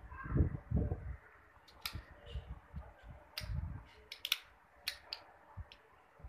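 Scattered light metallic clicks and a few soft knocks from handling a freshly hand-filed key and padlock parts.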